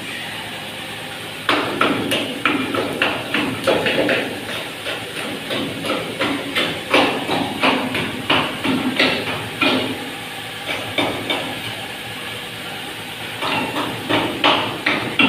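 Hammer blows on metal in a steady string, about two a second, easing off briefly for a few seconds and then starting again near the end.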